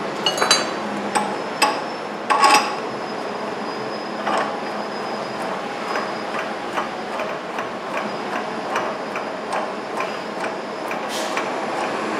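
Steel adapters and cups of a hub-bearing press kit clinking and knocking against each other and the steering knuckle as they are fitted by hand. A few sharp clanks come in the first few seconds, the loudest about two and a half seconds in, then lighter ticks and taps over a steady background hiss.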